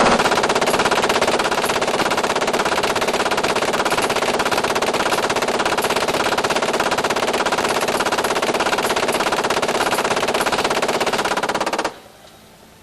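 M240 7.62mm belt-fed, gas-operated machine gun firing one long continuous burst of about 130 rounds in rapid, even succession. The burst cuts off abruptly near the end.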